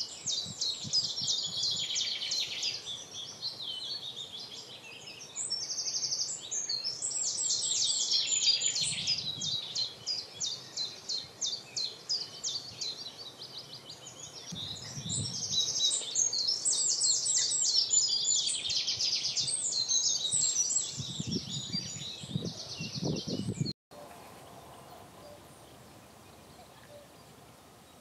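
A small songbird singing long, fast phrases of high repeated notes and trills, three phrases with short pauses between them, over outdoor background noise. The song stops abruptly about four seconds before the end.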